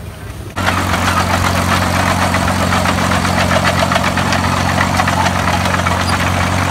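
Oliver OC-3 crawler loader's engine running steadily as the crawler drives, with a fast clatter over the engine note. It starts abruptly about half a second in.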